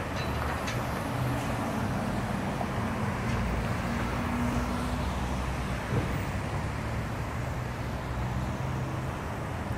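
City street traffic: engines of cars and SUVs running at low speed through an intersection, making a steady low drone. A brief thump about six seconds in.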